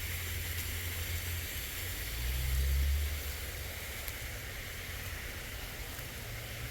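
Steady outdoor background hiss with a low rumble that swells about two to three seconds in.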